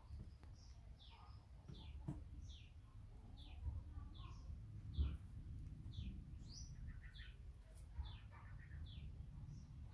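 A songbird chirping in the background: a short, high note sliding downward, repeated at a steady pace of about one to two a second, over a faint low rumble.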